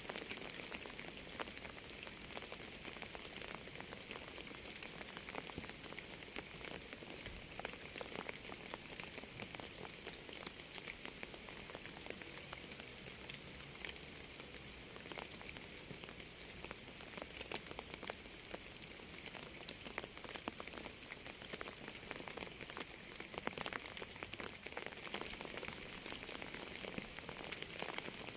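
Steady rain: an even hiss with many individual drops ticking sharply on top, holding at the same level throughout.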